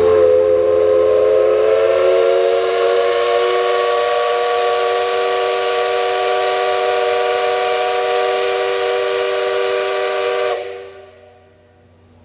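Steam locomotive whistle sounding one long blast for departure, a chord of several tones with a hiss of steam. The pitch rises slightly at the start, then holds steady for about ten seconds before it cuts off sharply.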